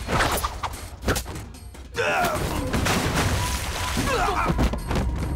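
Martial-arts fight sound effects: a quick run of sharp hits and weapon swishes in the first second or so, then short shouts from the fighters about two and four seconds in.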